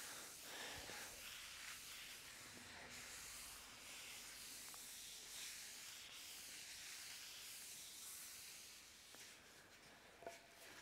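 Faint rubbing of a folded cloth pad wiping oil finish across a wooden cutting board, a soft steady hiss that swells and fades with the strokes. A couple of light knocks about ten seconds in.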